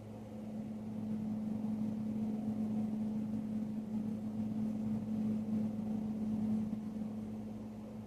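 A motor vehicle's engine running with a steady low hum that grows louder about a second in, holds, and eases off again near the end.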